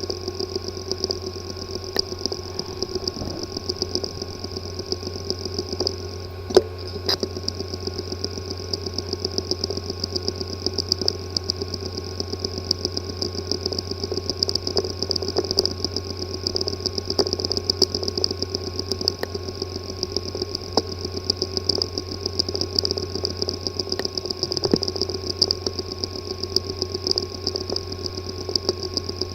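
A hard drive with a physically damaged disk assembly running: a steady hum and drone with rapid, irregular ticking, and one louder click about six and a half seconds in. This is the sign of internal damage that leaves the drive inaccessible and calls for cleanroom repair.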